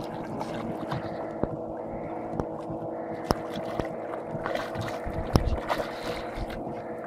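A boat motor runs steadily under several sharp knocks and splashes from a hooked golden dorado thrashing at the surface beside the boat. The loudest splashing comes about two-thirds of the way through.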